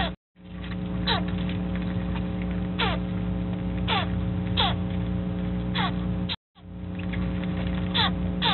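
Baby Virginia opossum making repeated short barking calls that fall in pitch, about one every second or so: contact calls to keep in touch with its mother. Under them runs a steady electrical hum, and the sound cuts out briefly twice.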